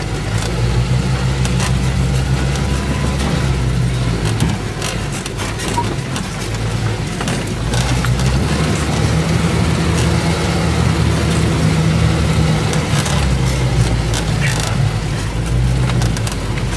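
Vehicle engine running under load as the vehicle drives over a rough forest track, heard from inside the cab. Short knocks and rattles from the bumps come through over the steady drone.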